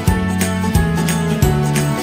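Background music with a steady beat, its bass notes changing about every two thirds of a second.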